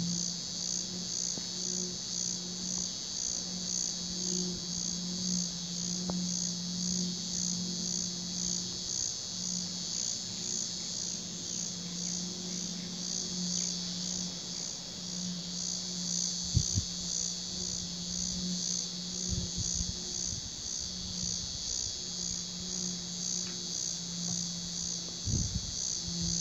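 Evening chorus of crickets: a steady, evenly pulsing high trill. Under it runs a low steady hum that drops out briefly now and then, and a few low thuds come in the second half.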